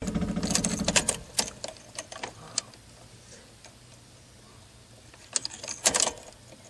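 Light clicks and a jingling rattle from a car key and ignition with the engine off, in two clusters: through the first couple of seconds, and again about five and a half to six seconds in.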